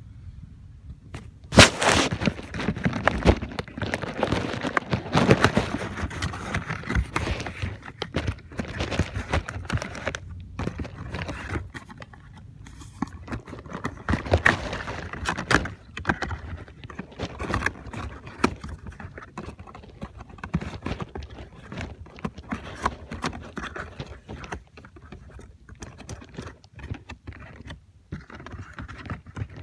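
Spin-on oil filters being handled, taken out of their boxes and set down: irregular knocks and clicks with rustling and scraping of packaging, the sharpest knock about a second and a half in.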